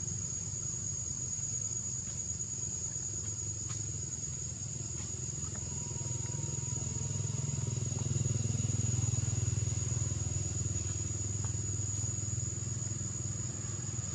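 Outdoor forest ambience: a steady high-pitched insect drone runs throughout over a low rumble like a distant engine, which swells about eight seconds in and then eases.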